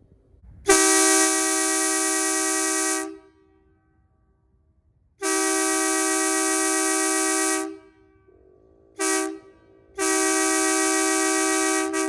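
Hadley "Bully" truck horn sounding three long, steady blasts of about two and a half seconds each, with a short toot just before the last one.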